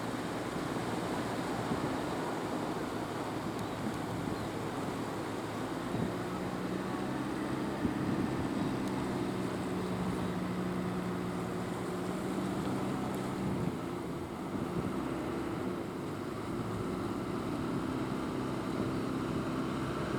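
Motor fishing boats' engines running over a steady rushing background, one engine's drone standing out clearly from about six to fourteen seconds in.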